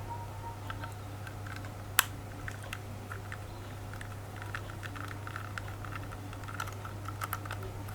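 Small screws being undone with a Phillips screwdriver and small metal laptop parts being handled, making irregular light clicks and ticks, with one sharp click about two seconds in. A steady low hum runs underneath.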